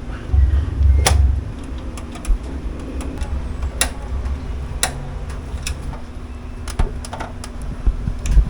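Scattered sharp clicks and taps of hard parts being handled and fitted together during a PC build, the loudest about a second in and around four and five seconds in, over a low rumble.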